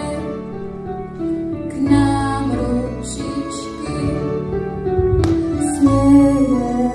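Slow music: sustained chords over a held bass line that changes every second or two.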